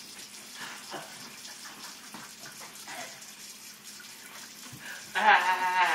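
Kitchen faucet running steadily into a stainless steel sink. Near the end, a loud voice cuts in over the water.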